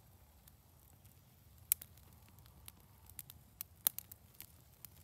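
Small campfire of damp leaves and sticks crackling as it struggles to catch, with scattered sharp pops, the loudest about two seconds in and about four seconds in.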